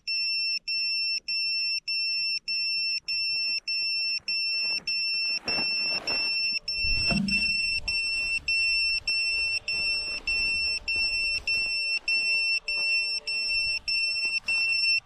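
Electronic warning beeper pulsing fast, about three beeps a second, then sounding as a continuous high tone from about halfway through, with rustling and handling thumps around it: an FPV drone's low-battery alarm after its battery has run flat.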